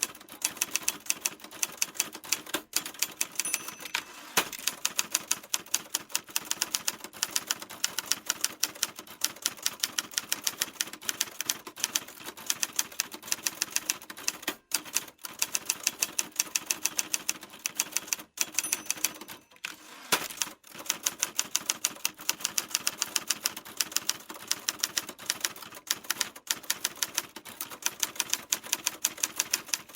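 Typewriter keys clacking in fast, continuous typing, several keystrokes a second, with a few brief pauses about halfway through.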